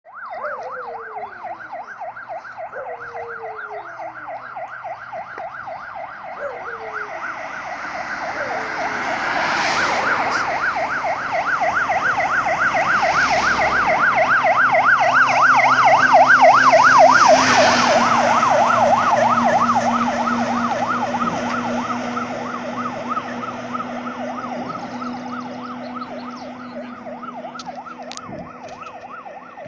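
Heavy fire engine's siren in a fast up-and-down yelp, about four sweeps a second, approaching on an emergency run. It grows louder to a peak about seventeen seconds in as the truck passes, then fades away. The truck's engine rises under it while it is close.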